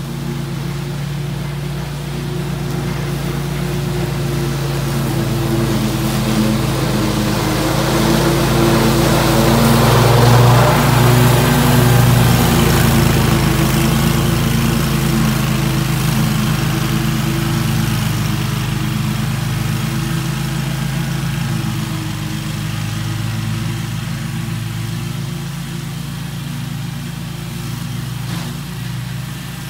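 Scag Tiger Cat II zero-turn mower's engine and cutting deck running steadily while cutting thick grass. The sound grows louder as the mower passes close about ten to twelve seconds in, then fades as it moves away.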